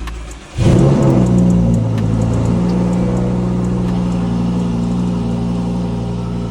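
Lamborghini Huracán's V10 engine starting about half a second in with a loud flare, then settling into a steady idle.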